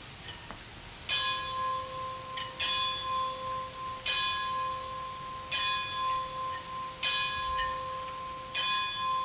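A large bell tolling, six strokes about a second and a half apart beginning about a second in, its hum ringing on between strokes: a clock bell striking midnight.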